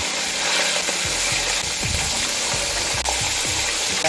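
Fish pieces frying in hot oil in a steel wok, a steady sizzling hiss as more pieces are added, with a single click about three seconds in.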